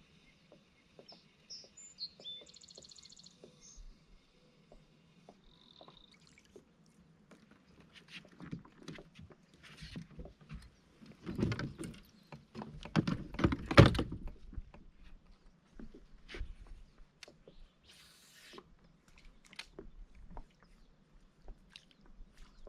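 A few short bird calls in the first seconds, then scattered clicks, knocks and low thumps from gear being handled on a fishing kayak, loudest in a cluster about halfway through.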